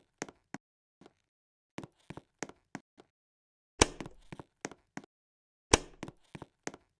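A string of sharp, irregular clicks and knocks, with two louder knocks about four and six seconds in and silence between them.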